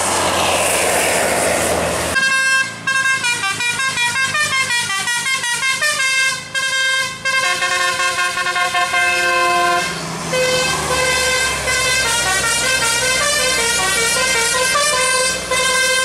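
Tour bus 'telolet basuri' multi-tone air horn playing a quick tune of short stepped notes, starting about two seconds in after a loud rush of noise and going on with a brief break near ten seconds.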